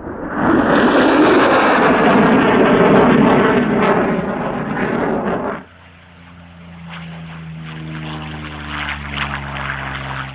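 A loud jet fly-past from an F-35A Lightning II's single afterburning turbofan, a dense crackling roar. About five and a half seconds in it gives way to the steady drone of a Curtiss P-40E Kittyhawk's Allison V-12 piston engine and propeller, getting louder as the fighter makes a low pass.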